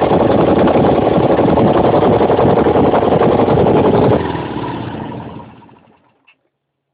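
Freshly rebuilt Ural motorcycle flat-twin engine running steadily on its first run after a full overhaul. A little over four seconds in it is switched off and dies away over about two seconds, followed by a faint click.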